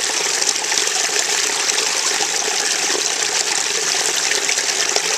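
Little waterfall pouring over mossy rocks into a shallow pool, heard close up as a steady splashing rush of water.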